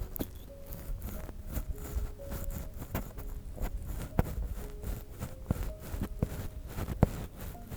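Ear pick scraping and rubbing inside the ear of a binaural microphone, an irregular crackly scratching with a few sharp clicks, the loudest about four seconds in and again about seven seconds in.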